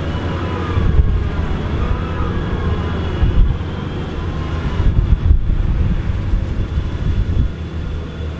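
Diesel tractor engine working hard, its revs rising and falling as it struggles to pull through deep mud.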